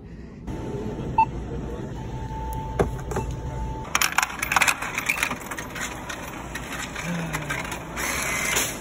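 Coins being fed into a self-checkout machine's coin slot, clicking and rattling as they drop inside, with many quick clicks from about halfway in. A faint steady tone runs through the first few seconds.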